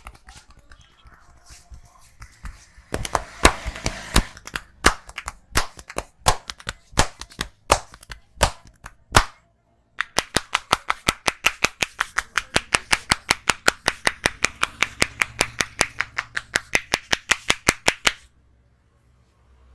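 A barber's hands slapping and tapping on a head during an Indian head massage. First come loud, uneven slaps, then a short pause, then a fast, even run of about five taps a second that stops suddenly near the end.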